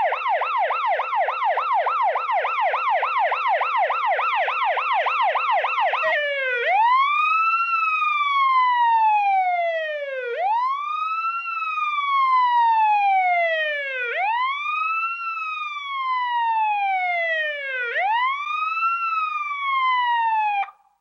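Police siren in a fast yelp of rapid up-and-down sweeps, switching about six seconds in to a slow wail that rises quickly and falls off slowly, four times over. It cuts off suddenly near the end.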